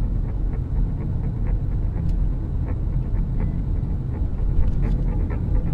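Vehicle driving, heard from inside the cabin: a steady low rumble of engine and road noise, with faint light clicks now and then.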